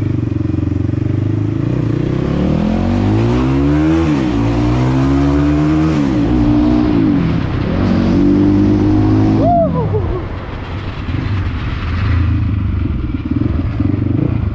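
Crossfire XZ250RR dirt bike's 250cc single-cylinder engine pulling away: the pitch climbs and drops back twice as it goes up through the gears, holds high, then falls away about ten seconds in as the throttle is closed, settling to a lower steady running.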